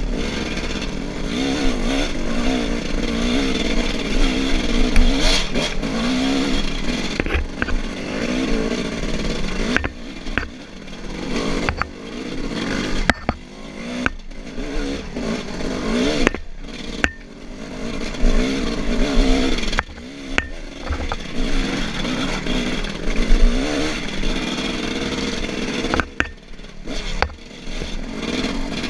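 Dirt bike engine revving up and down under load on a rough trail, its pitch rising and falling as the throttle opens and closes, easing off several times. Clatter and knocks from the bike going over rough ground sound among the engine noise.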